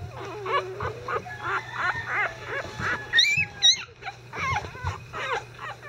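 Newborn Icelandic Sheepdog puppies, five days old, squeaking and whining in many short overlapping calls, with a few higher, shriller squeals a little past the middle.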